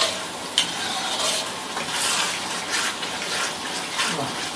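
Metal spatula stirring and scraping rice grains around an oiled wok, a rasping swish on each of the repeated strokes over a light sizzle, kept moving so the rice does not scorch. A sharp tap of metal on the wok about half a second in.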